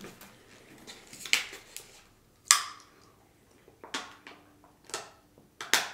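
A plastic water bottle being handled and drunk from: a few separate sharp plastic clicks and crinkles, the loudest a single snap about two and a half seconds in.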